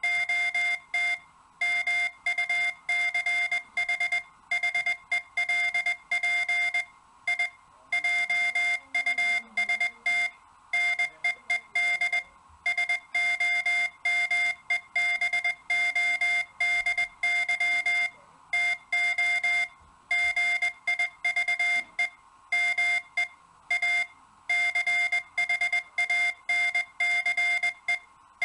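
Morse code (CW) sent as a single steady-pitched beep, keyed on and off in a quick run of short dots and longer dashes, with brief pauses between characters and words.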